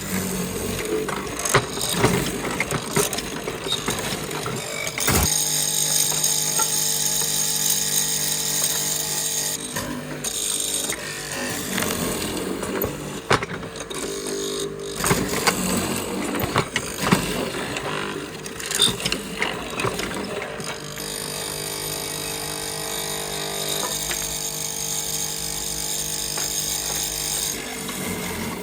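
Workshop sounds of wood being worked. A power tool runs with a steady hum and hiss in two long stretches, and between them come scattered clicks and knocks of tools and wood.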